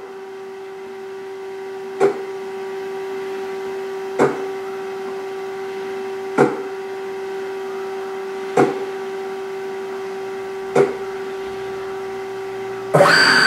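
Taig CNC lathe's stepper-driven axis making a steady hum, with a short whir of motor movement five times, about every two seconds, as the cross-slide steps 10 thousandths at a time between two-second G04 dwells. Near the end a louder, longer run of motor noise starts as the axes traverse.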